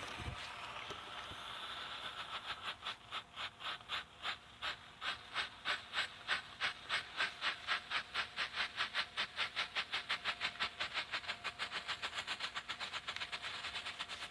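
Strobe firework burning: a hiss that turns into a rapid, even pulsing sputter, each pulse one flash, speeding up from about three to about five a second and fading near the end.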